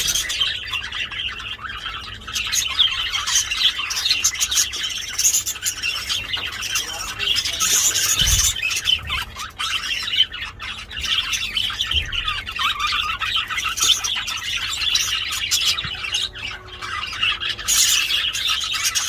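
Budgerigars chattering and warbling nonstop: a dense, loud stream of short chirps and squawks.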